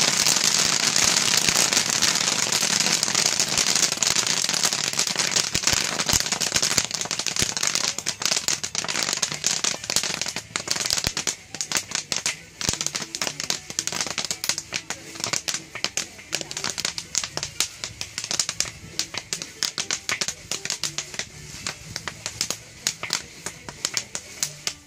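Kettle corn popping in a large kettle while being stirred with a wooden paddle. A dense crackle of popping thins out to scattered single pops about ten seconds in, as the batch finishes popping.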